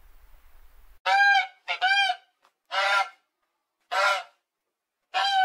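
An animal calling repeatedly: about six short, loud calls, each rising then falling in pitch, starting about a second in.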